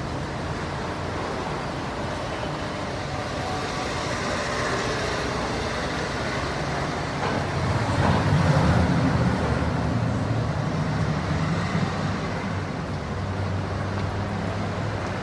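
Light city traffic ambience: a steady low rumble of road traffic, with one vehicle passing louder about eight seconds in.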